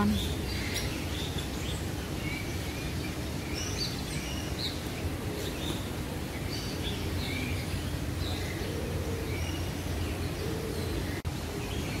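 Aviary birds chirping in short, scattered calls over a steady low ambient rumble.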